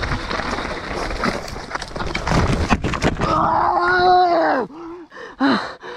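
Mountain bike rattling and clattering down a rocky trail, then crashing onto the rocks with a burst of hard knocks about three seconds in. The rider then lets out a long pained cry that drops in pitch at the end, followed by short gasping breaths, winded after the impact.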